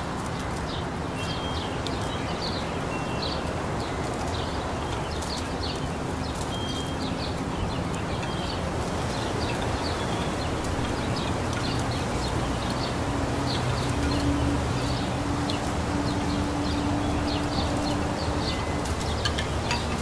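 Small birds chirping in short, quickly repeated calls over a steady rustle of breeze through maple leaves. A low steady hum comes in about two-thirds of the way through.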